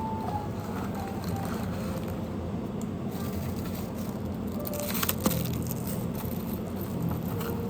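Steady low machine hum with faint scattered clatter and one sharp click about five seconds in.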